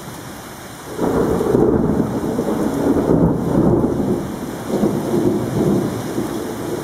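Steady rain, then thunder breaks about a second in and rolls on in a deep rumble that rises and falls in loudness.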